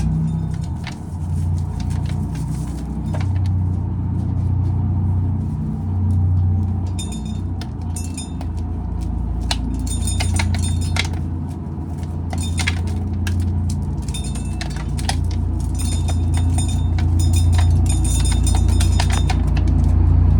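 Old tractor with a straight-pipe exhaust running nearby, a deep rumble that rises and falls in waves. Scattered dry clicks and clinks sound over it throughout.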